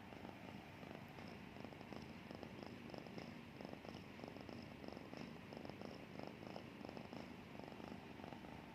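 Domestic cat purring steadily, a fast, low rattle that swells and eases slightly in cycles; the uploader calls it snoring.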